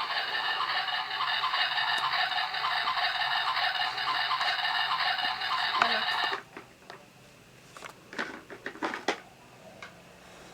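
Electronic sound effect from a battery-powered toy kitchen stove, played through a small tinny speaker, cutting off suddenly about six seconds in. A few light plastic clicks and taps follow.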